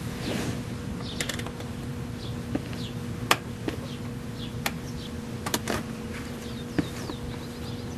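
Phillips screwdriver turning a screw out of a plastic interior trim panel: a handful of sharp, irregular clicks and ticks of the tool and screw against the plastic, over a steady low hum.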